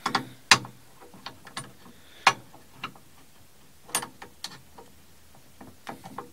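Irregular metal clicks and knocks as a drill press chuck is worked by hand, with no motor running.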